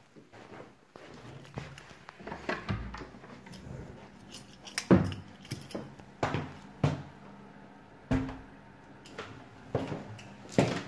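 Footsteps on a wooden floor: a run of separate knocks and thumps, roughly one a second, some heavier than others.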